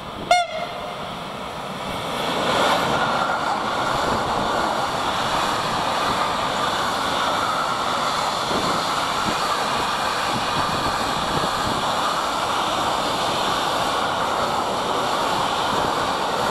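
Long freight train of intermodal wagons, carrying truck trailers and tank containers, rolling past on electrified main-line track: a steady rush of wheels on rail that swells in about two seconds in and then holds. A brief, loud tone sounds just after the start.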